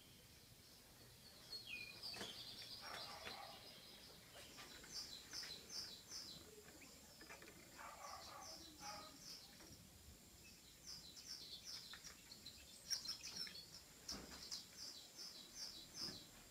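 Faint recorded songbird song played from a TV's speaker: quick runs of high chirps, repeated several times.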